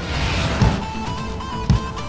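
Cartoon background music with a steady melody line and two deep thumps about a second apart, and a short hiss of noise at the start.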